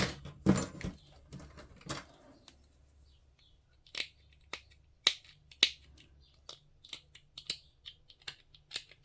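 Hobby sprue cutters snipping small plastic parts off a model kit's sprue: sharp clicks, a few early on and then a quicker irregular run from about four seconds in.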